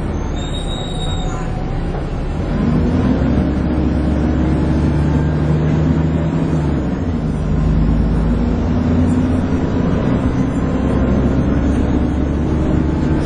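Dennis Trident 2 double-decker bus under way: the diesel engine and drivetrain pull harder about two and a half seconds in, the pitch climbing and holding, then dropping briefly around seven seconds in before climbing again. It has the droning whine that bus enthusiasts call 'hoovering'.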